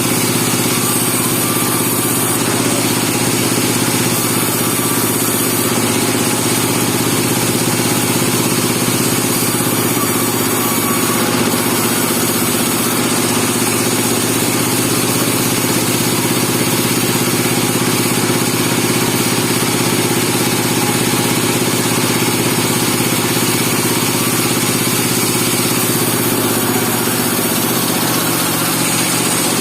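Bandsaw sawmill engine running steadily at a constant speed.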